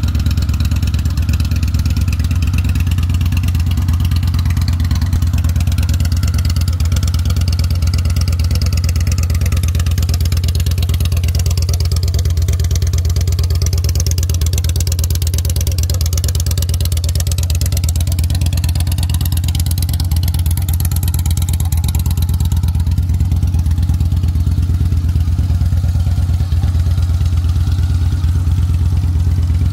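2013 Victory Cross Country's 106-cubic-inch V-twin idling steadily through an aftermarket Graffeo exhaust, with a deep, even note and no revving.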